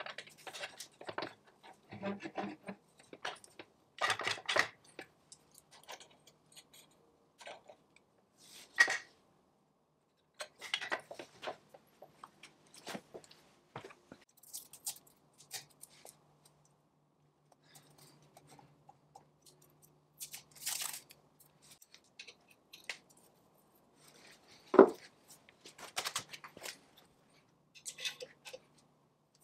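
Steel parts of a treadle lathe's pedal linkage being fitted by hand: a collar worked onto the crank rod, then a cotter pin pushed through a pin and bent over. It sounds as a run of light metallic clicks, scrapes and taps, with two sharper knocks about nine and twenty-five seconds in.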